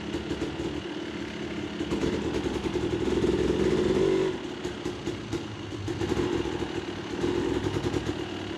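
Dirt bike engine running at low revs while the bike crawls slowly over rock. The throttle opens up for a couple of seconds near the middle, then again briefly near the end.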